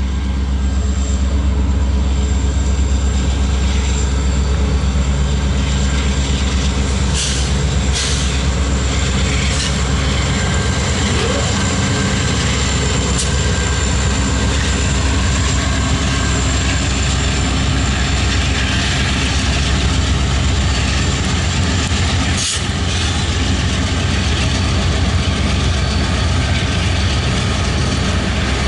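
Several Canadian National diesel locomotives working past, their engines a loud, steady low drone, with a few sharp clanks about seven, eight and twenty-two seconds in.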